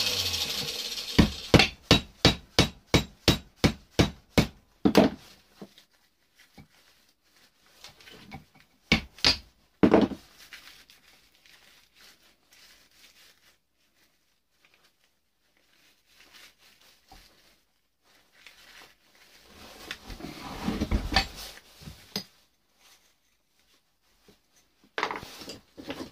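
A whirring tool dies away in the first second. Then comes a quick run of about ten hammer blows on an electric motor armature held in a vise, knocking its copper windings loose. Scattered single blows and handling clatter of metal parts follow.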